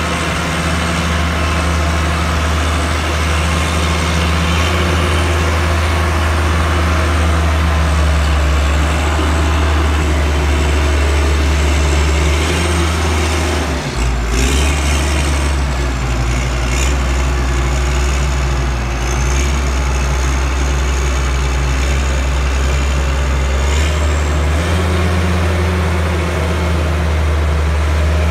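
Diesel engine of a Grove RT750 rough-terrain crane idling steadily with a deep, even hum. Its tone dips and changes briefly about halfway through and shifts again near the end.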